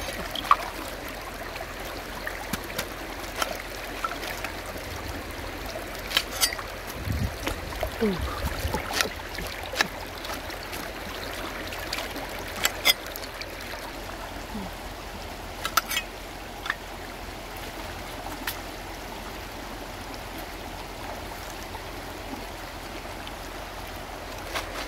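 Shallow stream running over rocks, with scattered sharp clicks and snaps of a cleaver cutting a cabbage head and leaves breaking off. The clicks stop for the last several seconds, leaving only the water.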